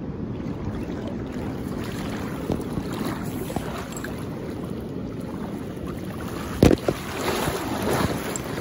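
River current rushing with wind buffeting the microphone, then a sharp thump and splashing about two-thirds of the way in as a landing net is pushed through the water.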